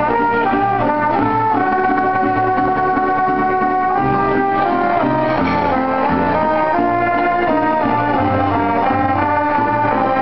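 Two mariachi trumpets playing a melody together, with the band's bass notes moving underneath.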